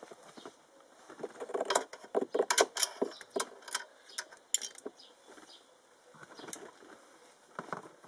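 Light metallic clicks and clinks as small steel nuts and a flexible magnetic pickup tool are handled. The clicks come in a quick irregular run through the first half, then a few scattered ones near the end.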